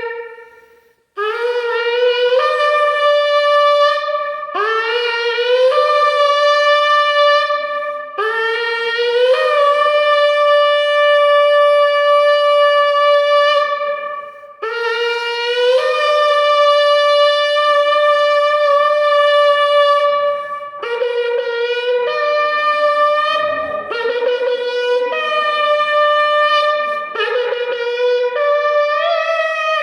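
Shofar (ram's horn) sounded in a series of blasts, each scooping up in pitch as it starts and then holding a steady note: four long blasts of several seconds each, then a run of shorter blasts in the last third.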